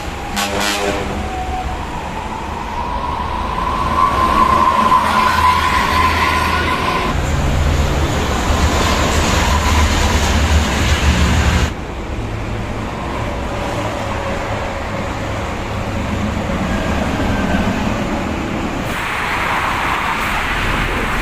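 Large buses passing at speed on a highway: heavy engine and tyre rumble in several short clips cut together, with a steady high tone through the first several seconds.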